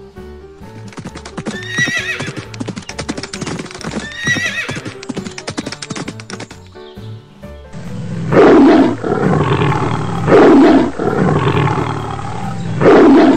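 Stock animal sound effects over a cartoon music bed. First a horse whinnies twice over rapid galloping hoofbeats, standing in for the zebra. From about eight seconds in, a big cat roars over and over, about every two seconds, louder than the rest.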